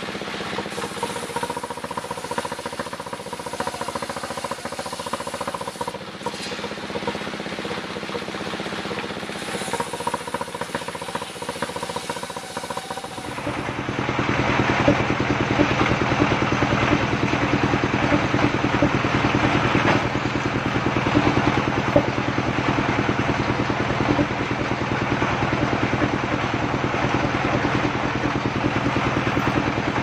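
Engine-driven circular saw of a mobile sawmill running steadily while logs are ripped into battens, the engine's hum under the noise of the blade. About 13 seconds in, the sound turns abruptly louder and harsher.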